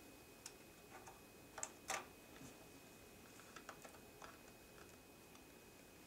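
Faint small clicks and ticks of a RAM stick being handled and slid into the memory slot of a 2010 Mac Mini, with two sharper clicks close together just under two seconds in and a few fainter ticks later.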